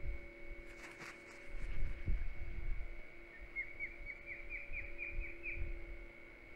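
Adult osprey giving its alert call: a rapid run of about a dozen sharp, whistled chirps, roughly five a second, rising slightly in pitch. It is the warning call that makes osprey chicks flatten motionless in the nest. Shortly before, about a second in, there is a brief rustle and flutter.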